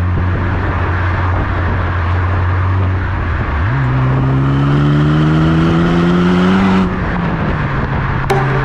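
Honda Civic Type R FL5's turbocharged 2.0-litre four-cylinder running through an R1 Titan titanium exhaust, heard close at the tailpipes while driving. It holds a steady low note, then the revs jump about three and a half seconds in and keep climbing under acceleration before dropping back near the end.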